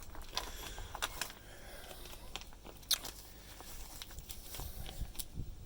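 Scattered clicks and crinkles, with one sharper snap about three seconds in, from the fridge being opened and cheeses sealed in plastic bags being handled on its shelves.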